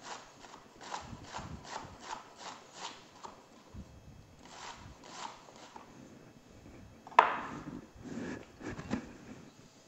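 Chef's knife slicing bok choy into thin strips on a wooden cutting board, a steady rhythm of about two to three strokes a second, then a few more strokes. About seven seconds in comes a sharp knock, the loudest sound, as the knife is put down on the board, followed by the leaves being handled and pulled apart.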